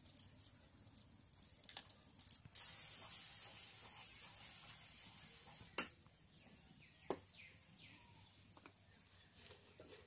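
Faint handling sounds at a wood fire in an earthen ground stove: scattered sharp clicks and knocks of dry sticks and a plastic jar and lid, the loudest about six seconds in. A steady hiss runs for about three seconds before that loudest click.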